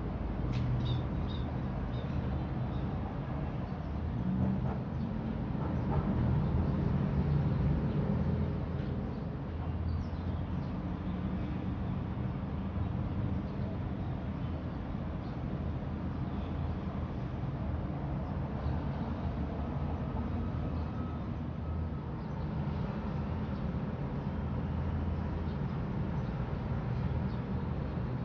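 Wood pellets burning in a PAO compact fire pit: a steady, low-pitched noise of the flames, with a few faint ticks.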